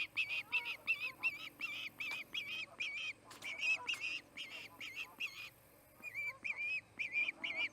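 Osprey screaming: a rapid series of short, high whistled calls, about four to five a second, with a brief pause a little past halfway before the calling resumes.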